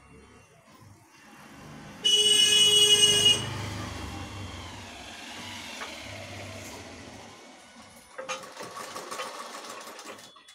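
A vehicle passes with its engine rumbling and gives one loud, steady horn blast of about a second and a half, a couple of seconds in. Near the end a sewing machine runs briefly with rapid clicking.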